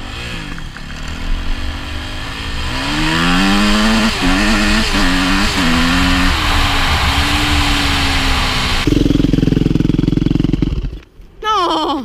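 Yamaha YZF 250 four-stroke single-cylinder dirt bike accelerating hard through the gears, the engine note climbing and dropping back at each upshift about four, five and five and a half seconds in, then holding steady. About nine seconds in the sound switches abruptly to a steady lower drone, and near the end there is a brief rising rev.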